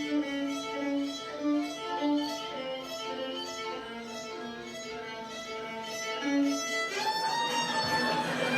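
Violin music: a melody of short held notes, moving into a fuller, wavering phrase about seven seconds in.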